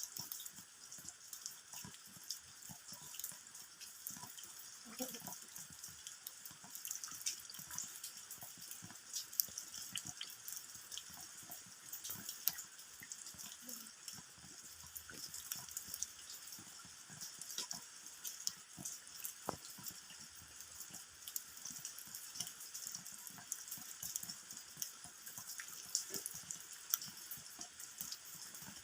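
Rain falling, its drops hitting the ground in many small, irregular taps over a soft steady hiss.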